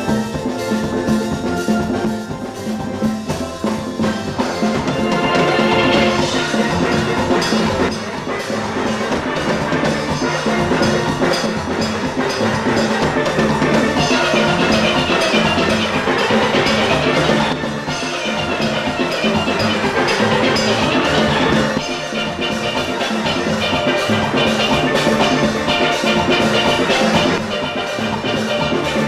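A full steel band playing a calypso arrangement on steelpans, backed by a drum kit and percussion.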